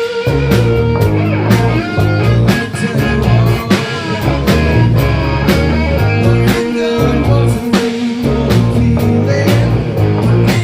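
Rock band playing blues-rock: electric guitar with bending notes over bass guitar and a steady drum beat.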